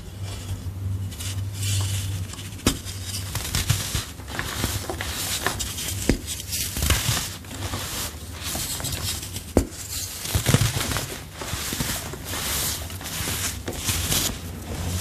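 A hand squeezing and crumbling soft dyed chalk blocks into powder: a steady run of dry crunching and crumbling, with a few sharp snaps as pieces break off.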